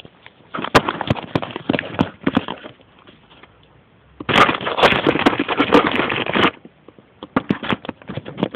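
Verhovina 6 moped's two-stroke engine catching in three short spells of rapid, irregular crackling pops, each dying out after a second or two. It is running without its exhaust pipe fitted, so the firing is unmuffled.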